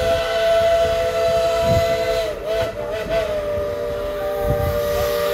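Steam locomotive's chime whistle blowing one long blast, a chord of several steady tones, with a brief waver about two seconds in.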